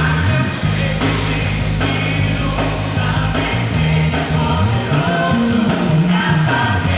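Live band music with singing, over a steady bass line that moves between notes.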